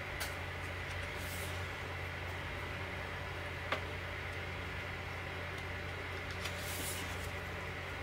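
Pages of a large hardcover photobook being turned by hand: two soft paper swishes about five seconds apart, with a light tick between them, over a steady low hum.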